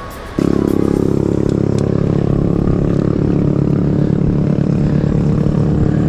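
A motor vehicle's engine running close by with a steady low drone, cutting in abruptly a moment in.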